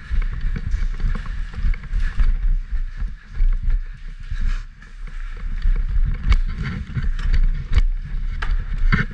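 Rumble and rustle of a body-worn camera being jostled as its wearer runs and climbs a wooden ramp, with scattered sharp knocks of footsteps and gear, more of them in the second half.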